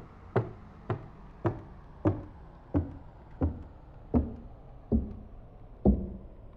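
A series of about ten knocks, each with a short low ringing tail, coming at first two or three a second and gradually slowing to nearly a second apart, heard through a voice changer app.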